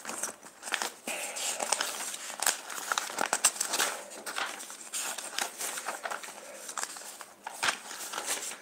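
Paper rustling as the pages of a spiral-bound notebook are leafed through and handled, with many irregular crinkles and sharp page flicks.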